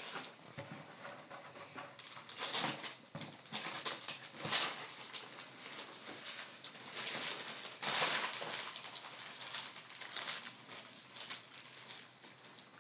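Rustling of paper and clothing being handled, in irregular bursts a second or more apart, the clearest about two and a half, four and a half and eight seconds in.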